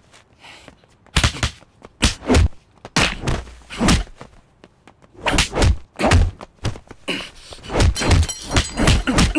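Film fight sound effects: a rapid series of hard punch and kick hits, some with swishes, one or two a second, starting about a second in.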